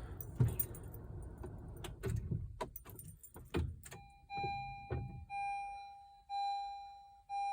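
A few clicks and a jingle of keys, then from about four seconds in a 2020 Honda CR-V's dashboard warning chime beeping about once a second, each tone fading away. The push-button start has failed and warnings have come up, a fault the dealer later traced to a weak battery.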